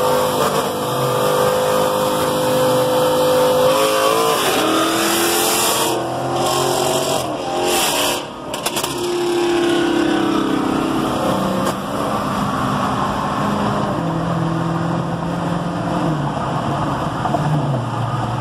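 Dodge 6.4-litre 392 HEMI V8 engines accelerating hard side by side, one of them straight-piped, heard from inside a car's cabin. The engine pitch climbs and breaks off between gears, with a short dip about eight seconds in. It then settles lower and steps down as they ease off.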